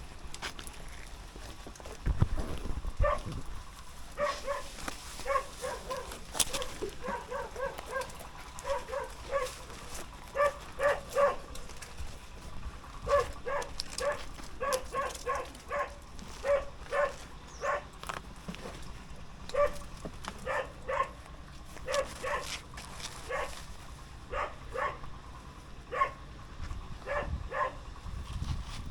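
An animal calling over and over in short, pitched notes, often two in quick succession, with brief pauses between clusters.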